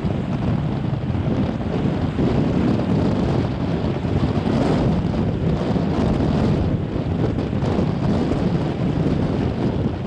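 Strong wind buffeting the microphone: a steady noise, heaviest in the low range, with no other sound standing out.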